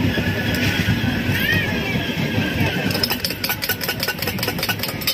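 Indian Railways passenger train coach rolling slowly through a station, heard at an open door: a steady low rumble of wheels on the rails. About three seconds in, a quick run of clicks starts, about six a second, and lasts to the end.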